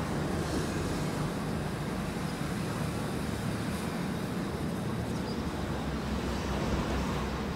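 Steady low rumble and hiss of outdoor background noise, with a faint low hum underneath and no distinct events.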